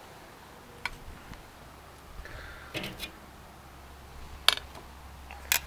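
Metal tongs clicking and clacking as grilled bratwursts are lifted off a kettle grill's grate and set down in a glass dish: a handful of short sharp clicks, the two loudest near the end.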